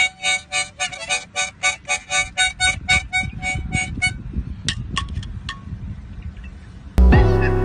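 Harmonica blown by an orangutan in quick, even puffs, about four a second, for about four seconds, then a few stray notes. Near the end, loud music starts abruptly.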